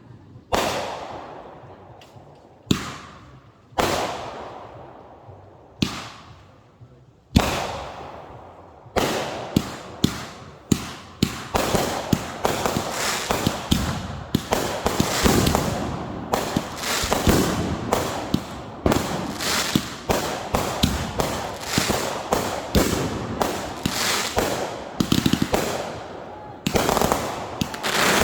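Fireworks going off: a few single bangs a second or two apart, then from about nine seconds in a dense, rapid run of bangs and crackling that keeps going.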